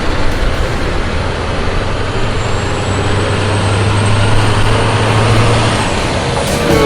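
A large vehicle engine, such as a truck's, running steadily with a constant low hum under dense noise.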